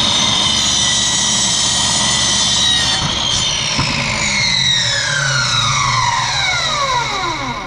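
Electric miter saw cutting 2-inch PVC pipe: the motor runs at full speed with a steady high whine, then is switched off about three and a half seconds in and spins down with a long falling whine until the blade nearly stops.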